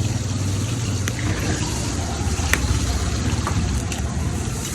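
Steady noise of a busy street-food stall: a continuous low rumble with a hiss over it, and a few short clicks and knocks.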